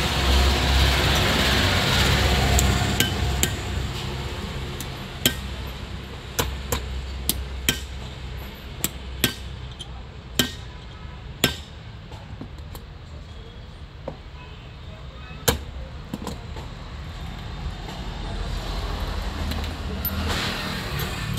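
Metal-on-metal clinks and taps as a socket, pliers and alternator housing parts are handled and set down on a workbench: about a dozen sharp, irregularly spaced clinks in the middle of the stretch, with a steady low rumble at the start and again near the end.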